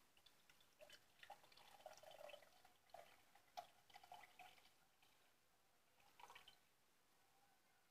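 Faint trickling and dripping of freshly squeezed sweet lime juice poured from a plastic juicer bowl into a glass mug, in uneven spurts over the first few seconds, with one last short trickle later.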